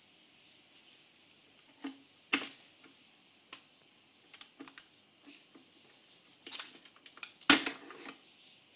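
Irregular sharp plastic clicks and knocks from the capsule holder of a Krups Dolce Gusto Creativa coffee machine being handled and pulled out. The loudest knocks come about two and a half seconds in and about seven and a half seconds in.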